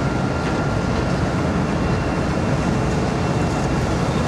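Steady low rumble of ship diesel engines working during a berthing manoeuvre, with a faint steady high whine over it.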